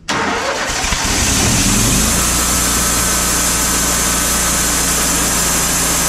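Wood-Mizer LT40 sawmill's engine starting suddenly, climbing in speed over about the first two seconds, then running steadily.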